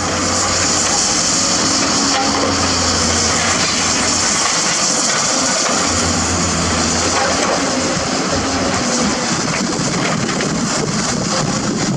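Hydraulic excavator's diesel engine running, with a low hum that swells and fades several times and a steady high hiss over it.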